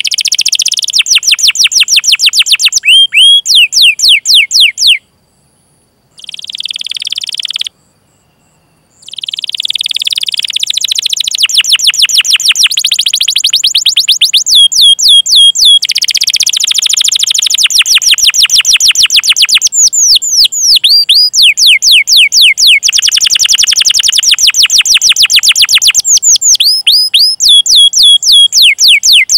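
Domestic canary singing long, fast trills of rapidly repeated high-pitched chirps, with two brief breaks about five and eight seconds in.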